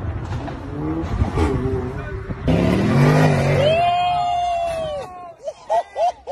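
Car engine and traffic noise, then after a cut a louder car engine revving with tyre noise as the car slides off the road. This is followed by people crying out in reaction: one long rising-and-falling shout, then several short ones.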